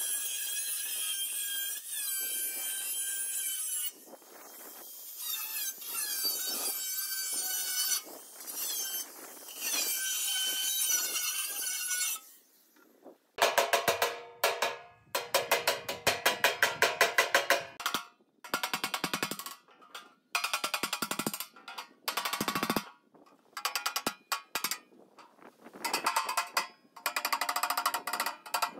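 Angle grinder with a flap disc grinding sheet steel, a steady high whine that stops about twelve seconds in. Then a hammer strikes the sheet-steel edge of the box in quick runs of sharp metallic blows.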